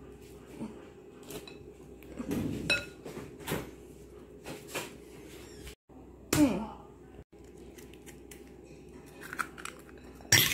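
Scattered light taps and knocks as an egg and dishes are handled on a table, with a brief falling voice-like sound about six seconds in and a sharp click near the end.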